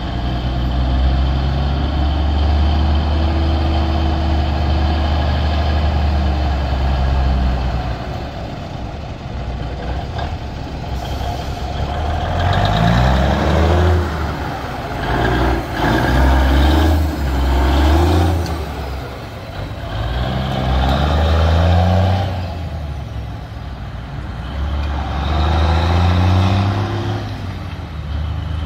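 Diesel semi tractor pulling away and accelerating, its engine note climbing and then dropping again several times as it shifts up through the gears.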